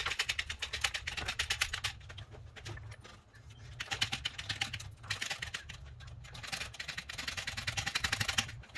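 Rapid ratcheting clicks, about ten a second, coming in several bursts with short pauses between: a jack being worked up to raise and support the fuel tank.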